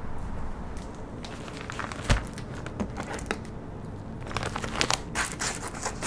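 Brown paper mailer being torn open and handled, its paper crinkling and rustling, mostly in the second half. A single thump about two seconds in.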